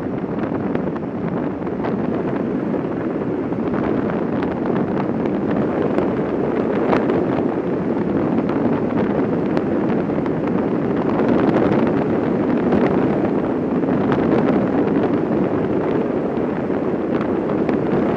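Steady rush of wind and rolling road noise from a Quest velomobile coasting fast downhill, with scattered small clicks and rattles through it.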